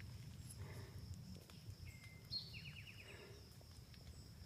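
Faint outdoor ambience: a low rumble and a thin steady high tone, with a short bird call and a quick trill of repeated notes about two to three seconds in.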